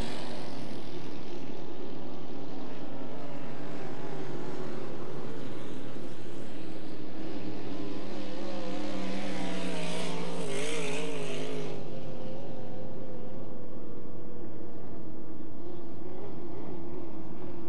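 Engine of a 7-litre class racing hydroplane, an inboard V8, running at speed with its pitch wavering. It is loudest from about eight to twelve seconds in, then eases off.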